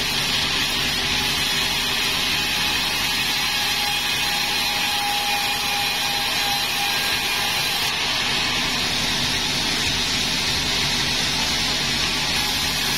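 Sawmill saw running steadily through a log, a loud even noise with a faint whine coming and going.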